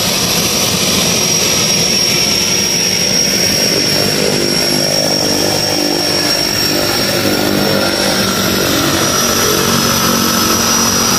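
De Havilland Canada DHC-6 Twin Otter's two turboprop engines running as the aircraft taxis: a steady high turbine whine over loud propeller noise, with a lower propeller drone coming in about four seconds in.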